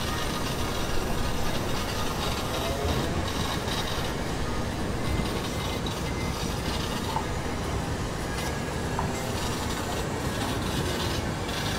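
Steady mechanical rumble and rattle from a 1929 Sentinel steam waggon, heard from inside its cab, with a few faint clicks.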